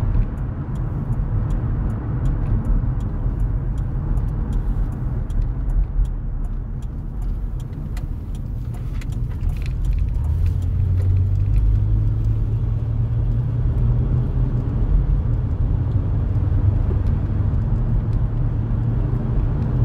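Car cabin road noise and engine drone while driving, a steady low rumble that grows into a stronger low hum about halfway through as the vehicle comes out of a turn. Faint light ticks sound through the first half.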